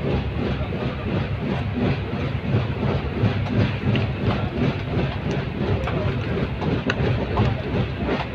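Passenger train running at speed, heard from inside the carriage: a steady rumble with the clatter of wheels over the rails.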